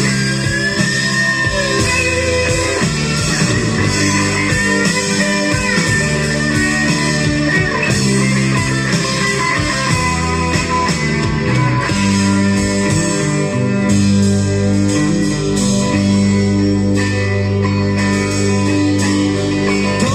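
Instrumental break of a Russian rock song played from a vinyl record: an electric guitar lead with bending notes over steady chords from the band.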